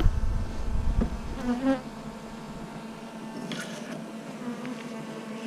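A colony of honeybees buzzing in a steady hum from an open hive, with a soft knock about a second in as a frame is handled.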